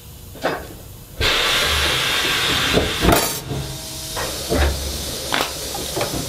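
Sheet metal squaring shear working stainless steel sheet: a knock, then a sudden loud rush of noise about a second in that eases off after a couple of seconds, with metallic clunks and knocks of the blade and sheet over it.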